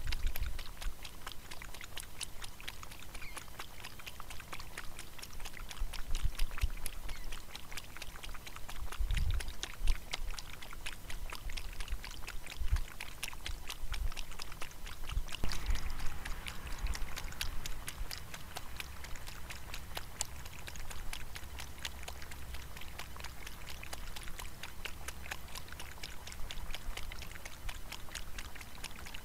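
Kangaroo lapping water from a trough, a steady run of quick wet clicks, with a few low thumps now and then.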